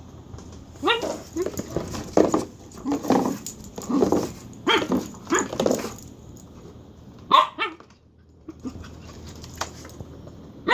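Dachshund making a run of short, odd vocal sounds, bark-like but strange, which the owner likens to a chicken. Then one more call after a short pause.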